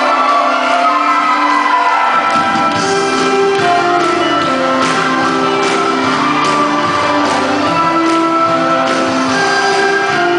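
Upbeat stage-musical number with a steady beat filling a large hall, its bass line coming in about two seconds in, with shouts from the audience over it.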